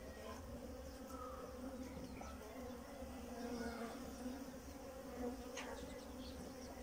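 Honeybees buzzing on a brood frame held out of the hive: a faint, steady hum.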